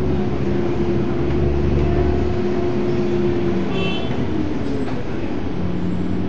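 Volvo Olympian double-decker bus's engine and drivetrain running while the bus drives on, heard from inside the bus. The engine note drops about four seconds in and settles on a different steady hum near the end, and a brief high-pitched tone sounds about four seconds in.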